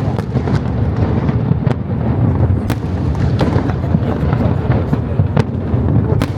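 Fireworks display going off in quick succession: a continuous low rumble of bursting shells with many sharp cracks and pops on top.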